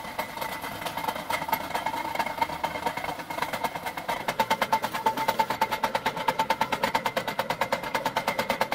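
Homemade belt-driven flywheel-and-generator rig running, with a steady whine and a rapid, even mechanical ticking that grows louder about four seconds in.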